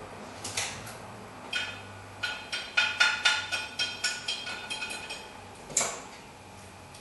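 Metal drum-brake hardware and tools clinking against the brake backing plate as a rear brake shoe is being fitted. It is a run of about a dozen sharp, ringing metallic clicks in the middle, with single clicks before and after.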